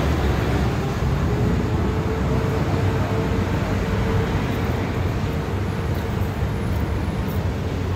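Steady rumble of a vehicle on the move, engine and road noise, with a faint steady hum.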